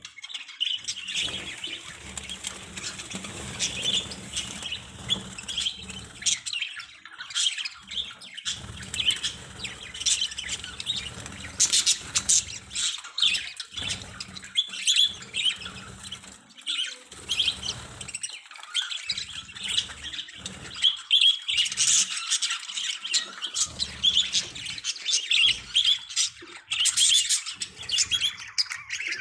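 A flock of budgerigars chattering and chirping continuously, with intermittent low rumbling underneath.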